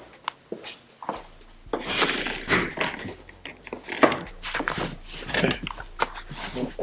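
Irregular clicks, knocks and rustling scrapes of parts and trim being handled and fitted by hand.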